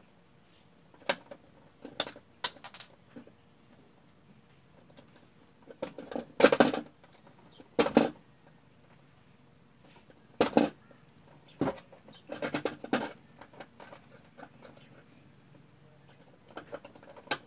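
Scattered clicks, taps and scrapes of a screwdriver, wires and plastic fittings being handled while wiring a wall switch and PVC junction boxes. The knocks come singly or in short clusters, the loudest about a third of the way in.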